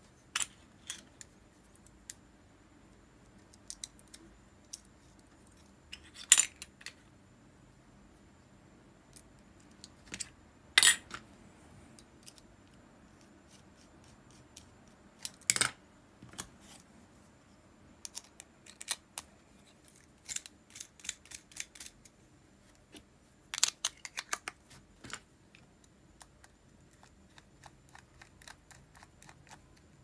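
Small metal parts of an Ambassadeur 2500C baitcasting reel clicking and clinking as the reel is handled, in irregular sharp clicks with a few louder clacks.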